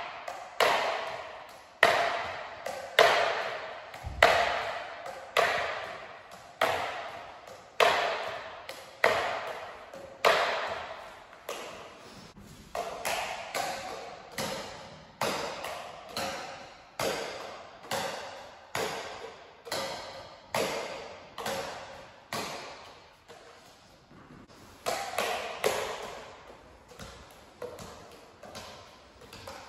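Plastic juggling clubs tapping against each other in a juggling pattern: a run of sharp hollow knocks, about one a second, each ringing on and echoing in a large bare hall.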